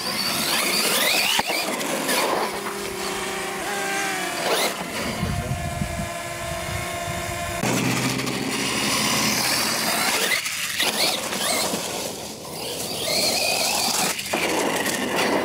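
Losi LMT radio-controlled monster truck running on a 2S battery: its brushless electric motor and drivetrain whine, rising and falling in pitch as it speeds up and slows, with a steadier whine for a couple of seconds around the middle while it holds speed. Tyre noise runs underneath.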